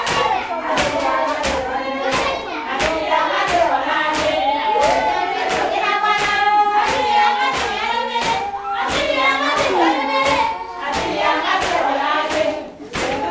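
A group of women singing a hymn together, with steady rhythmic hand clapping keeping the beat.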